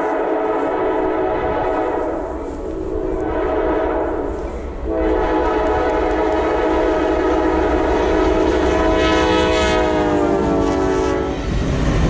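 Locomotive air horn blowing over the low rumble of a passing train: one blast sounding at the start and fading, then a long blast from about five seconds in that drops in pitch near the end and cuts off shortly before the close.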